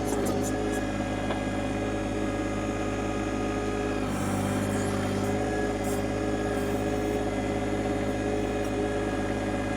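John Deere 2025R compact tractor's three-cylinder diesel engine running steadily under backhoe work, its note shifting slightly about four seconds in. There are a few faint clinks near the start.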